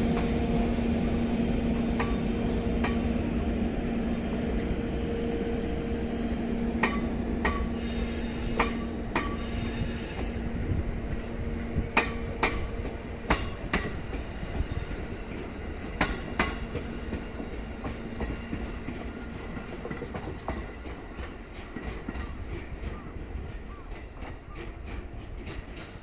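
Train carrying a 205 series electric multiple unit pulling away along the track. A steady hum fades out, and sharp clacks come mostly in pairs as wheels cross rail joints. The whole sound slowly grows fainter as the train moves off.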